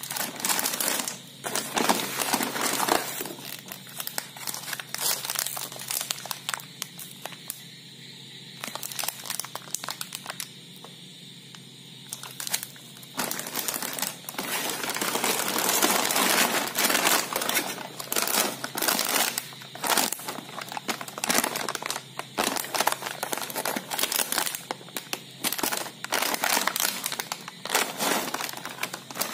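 Crinkly plastic snack wrappers and biscuit packets crackling as they are handled, in irregular bursts, with a quieter stretch in the first half.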